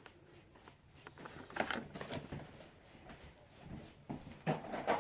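Light rustling and a few small clicks and knocks of packaged toys being handled, with a cluster about a second and a half in and another near the end.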